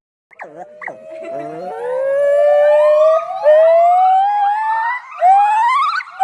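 A dog howling: a couple of short yelps, then one long howl rising slowly in pitch, breaking into shorter wavering howls near the end.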